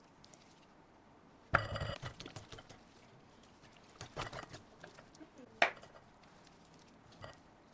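Kitchenware clinking: one short ringing clink with a bright metallic or glassy ring, then a few sharp knocks a second or two apart.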